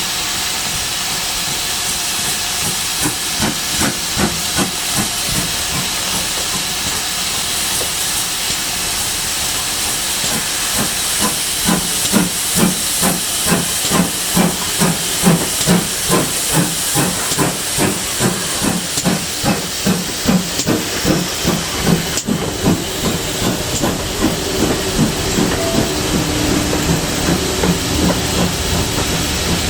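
Steam locomotive hissing steam, with its exhaust chuffing in an even beat that builds up after a few seconds to about two or three beats a second, then fades back under the hiss near the end.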